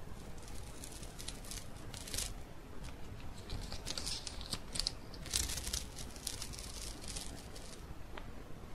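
Paper facing being peeled off a freshly set mosaic border: an irregular papery tearing and crackling, busiest in the middle.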